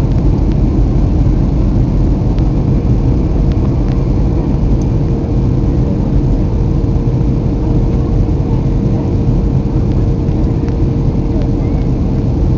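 Steady low rumble of cabin noise inside a passenger plane descending to land, with a thin steady hum that grows stronger about four seconds in.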